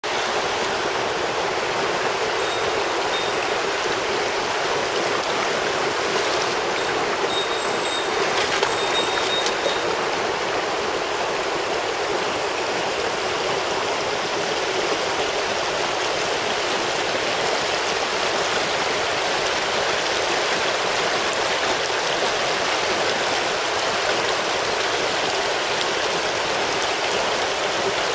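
Shallow mountain stream flowing steadily over rocks and small rapids, an even, unbroken rush of water.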